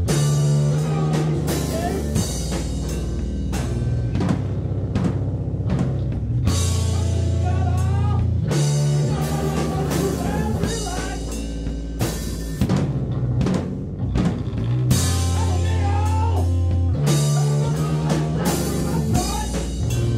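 A rock band playing live, with drum kit, electric bass and electric guitar. Long low bass notes shift every couple of seconds under steady drum hits.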